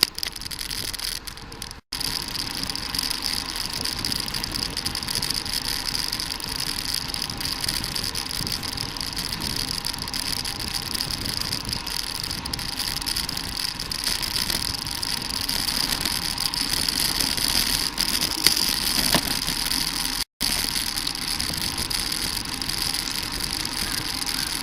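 Steady wind and road noise from riding a bicycle, heard on the camera's microphone, with two brief dropouts where the sound cuts out completely.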